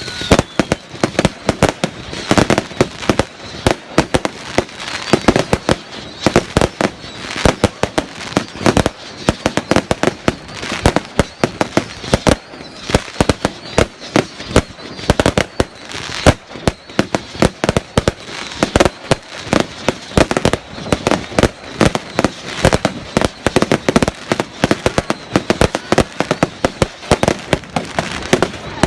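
Fireworks display: a rapid, continuous barrage of bangs and crackles.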